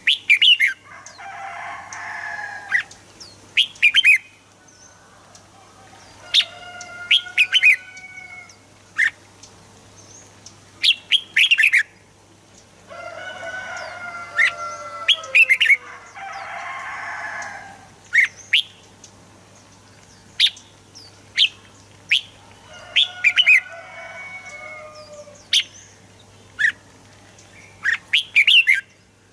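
Red-whiskered bulbuls singing: clusters of short, sharp, whistled notes, repeated again and again, with several longer, lower, rougher calls in between. A steady low hum runs underneath.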